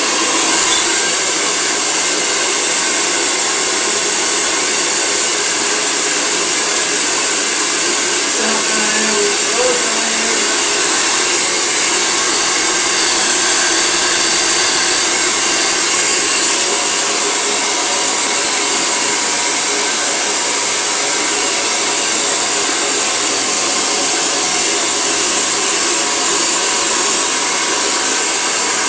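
Handheld hair dryer running steadily, a constant rush of air with a high-pitched whine, drying wet hair.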